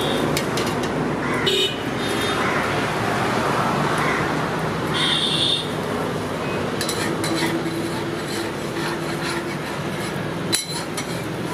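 Roadside street ambience: traffic noise and background voices, with a short high-pitched vehicle horn toot about five seconds in. A metal spatula knocks on the griddle near the end.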